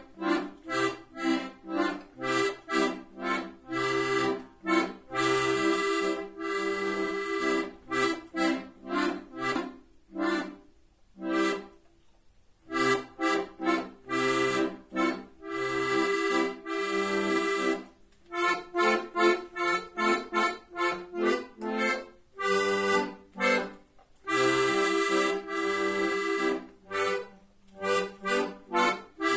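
Piano accordion played solo: a tune of short, detached chords mixed with longer held ones, with a brief break about twelve seconds in.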